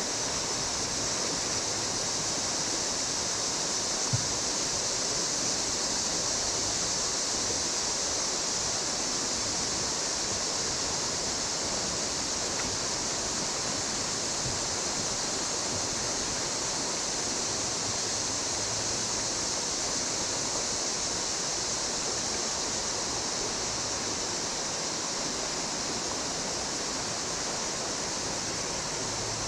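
River water rushing over rapids: a steady, unbroken hiss, with a single short knock about four seconds in.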